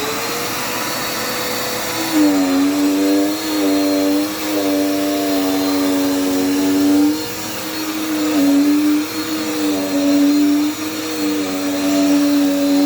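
Dirt Devil Power Max vacuum cleaner running with a steady rush of air. About two seconds in, a hum joins in, and its pitch dips briefly several times as the cleaner is worked over the floor.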